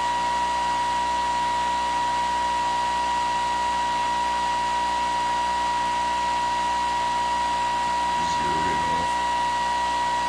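Pulse motor running steadily with its coils pulsing at about 470 hertz from a 24-volt battery, giving a steady high-pitched whine made of several even tones.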